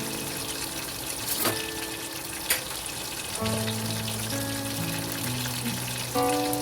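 Background music with held notes over a steady sizzle of food frying in oil, with two sharp clicks about a second apart.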